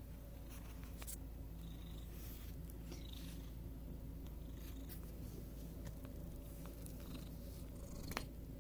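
Black-and-white cat purring steadily while being stroked, with a couple of soft clicks near the end.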